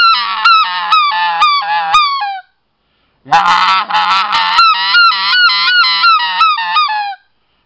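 A RedBone specklebelly goose call, blown through cupped hands in the proper calling grip, gives a loud, fast run of short high honking notes, about four a second, each dropping in pitch at its end. The run breaks off briefly about two and a half seconds in, starts again, and stops shortly before the end.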